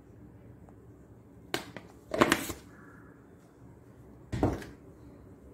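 Handling sounds from cooking at a steel pot: a sharp knock and a short rustle about one and a half to two and a half seconds in, then a duller thump about four seconds in.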